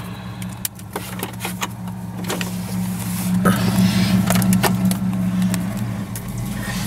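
A 1987 Chevy S10 pickup's engine idling steadily, heard from inside the cab, a little louder from about three and a half seconds in, with scattered light clicks and knocks.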